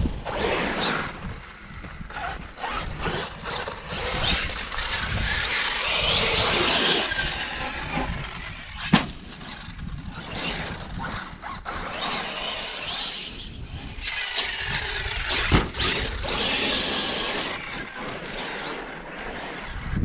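A Losi 5ive-B 1/5-scale RC buggy's 1100kv brushless motor, run by a Castle XLX2 controller, whining up and down as it speeds up and slows, with its tyres on sand and gravel. Two sharp knocks stand out, about nine seconds in and again past fifteen seconds.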